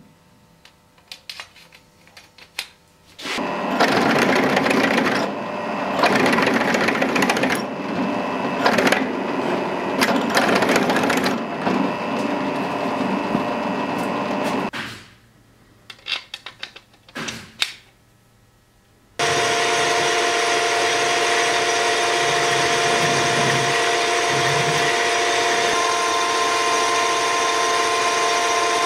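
Drill press boring into a polished steel fitting held in a vise: a steady whir with cutting noise for about eleven seconds, a few seconds in, after some light clicks. A few more clicks follow, then a metal lathe runs steadily with a constant hum and several steady tones.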